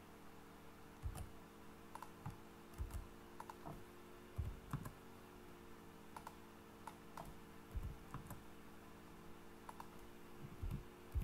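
Computer keyboard keys and mouse clicks tapping irregularly as numbers are entered into a field, over a faint steady hum.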